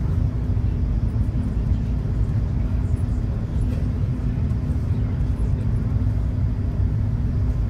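Steady low engine drone of a high-speed passenger ferry under way, heard from inside the cabin, with a constant hum running through it.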